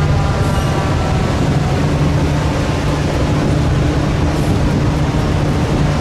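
Fire engine's diesel engine running with a steady low rumble as the truck creeps forward in traffic.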